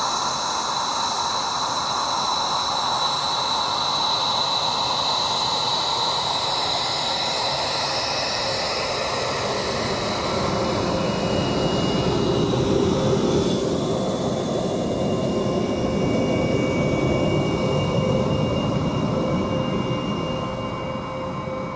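The twin Pratt & Whitney F119 turbofan engines of an F-22 Raptor running at low taxi power: a steady high whine over a rushing rumble. The rumble swells about halfway through as the jet passes close by.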